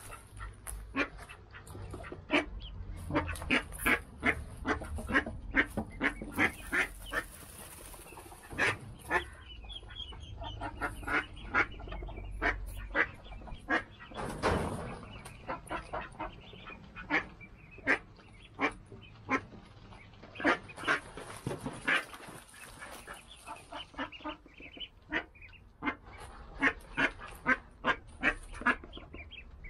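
Mallard ducks quacking in runs of short, repeated calls, several a second.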